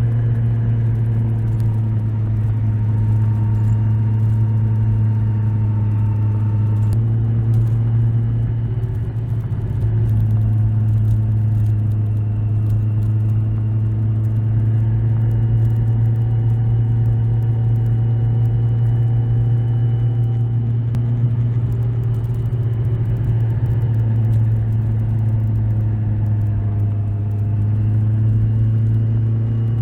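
Kawasaki Z1000SX's inline-four engine running under way, its pitch drifting gently up and down with engine speed, with a brief dip about nine seconds in. The bike is at the end of its break-in period.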